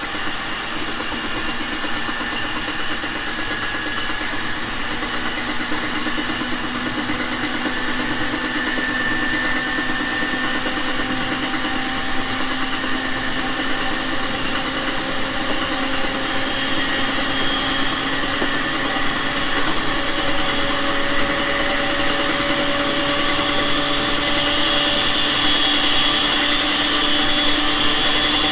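JR East 701 series 5500-subseries electric train running, its traction-motor whine climbing slowly in pitch as the train gathers speed, over steady wheel and rail noise. It grows a little louder toward the end.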